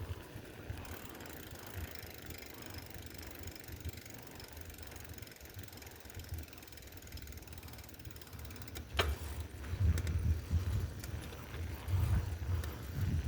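Bicycle on the move, its rear freewheel ticking as it coasts, over a low rumble that grows louder in the last few seconds. A brief sharp sound comes about nine seconds in.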